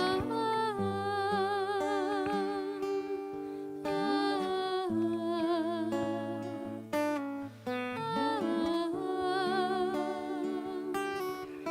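Slow background music: a wavering melody with slides between notes over held low notes.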